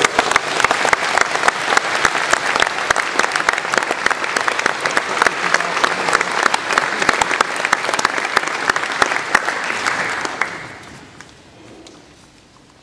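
Audience applauding steadily, dying away about ten and a half seconds in.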